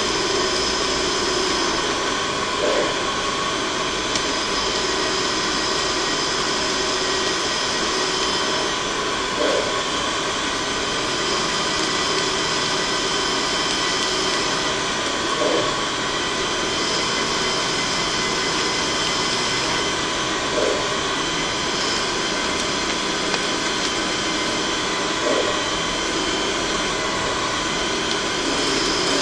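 CNC machine tool running a machining cycle: a steady mechanical whine and hiss, with a higher whine that starts and stops every few seconds and a brief knock about every five to six seconds.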